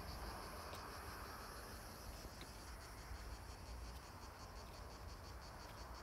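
Insects chirping faintly in a fast, even pulse over a low rumble.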